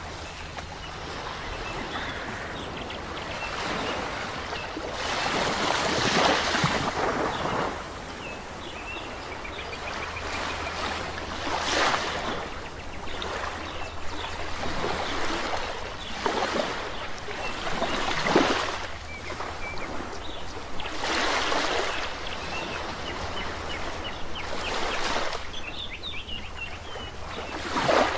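Sea waves washing onto a shore, surging and receding every few seconds, with faint bird chirps over them.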